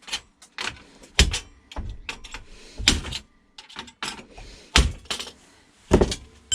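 Hard plastic parts of an inkjet printer being pried and pulled apart during a teardown, giving a run of sharp, irregular clicks and knocks.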